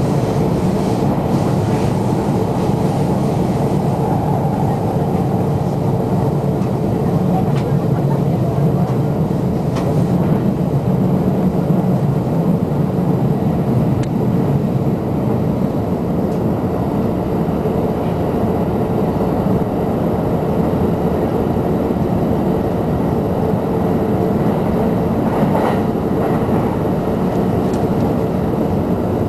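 JR Shonan-Shinjuku Line commuter train running at speed, heard from inside the passenger car: a steady rumble of wheels on rails with a low, even hum underneath.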